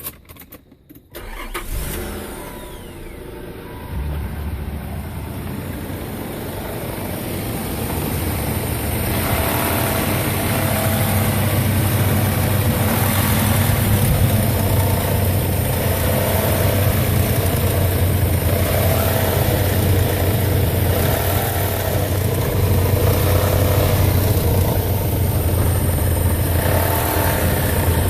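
2001 Nissan Pathfinder's V6 engine starting about a second in, then running steadily and growing somewhat louder as it settles. The owner is chasing a ticking noise from the engine that he says is barely audible at idle and clearer when revved.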